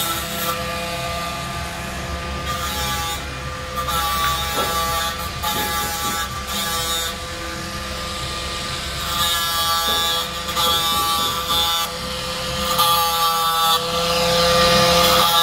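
Angle grinder running with a steady whine, its disc grinding the teeth of a Stihl chainsaw chain to sharpen them in several short passes, each pass adding a gritty hiss; the passes are loudest near the end.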